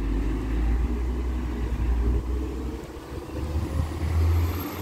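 Low, continuous rumble of a motor vehicle engine, with a faint high whine that rises and falls near the end.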